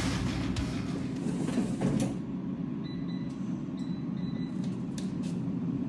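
Heavy guitar music cutting off about two seconds in, then a steady low hum with a few faint clicks.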